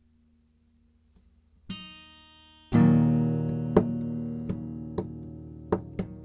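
Guitar: after near quiet, a soft chord, then a loud chord struck about halfway through that rings out and slowly fades, with several sharp clicks or taps over the ringing.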